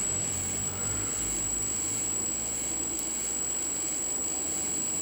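Wind buffeting the microphone: an uneven low rumble over a steady hiss, with a thin, high steady whine above it.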